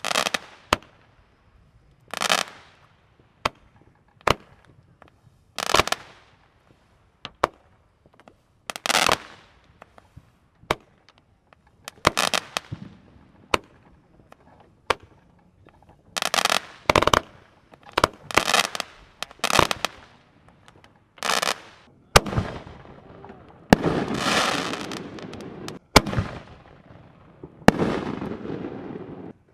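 Aerial fireworks going off in quick succession: sharp bangs every second or two, many followed by a short hissing crackle. From about two-thirds of the way in the crackling lasts longer, about a second and a half at a time.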